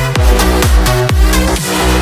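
Electronic dance music with a steady four-on-the-floor kick drum, about two beats a second, over a sustained bass line.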